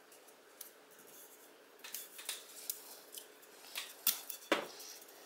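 Masking tape being pulled, torn and pressed down onto a cast motorcycle wheel's spokes: scattered short crackles and scrapes, the sharpest a little after four seconds in.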